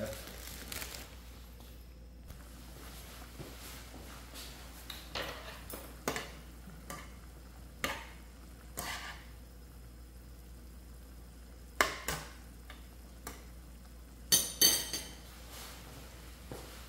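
Cookware and metal utensils handled while cooking ramyeon in a frying pan: scattered light knocks and clinks, a sharper clink about twelve seconds in, and a pair of ringing metallic clinks near the end, the loudest of all.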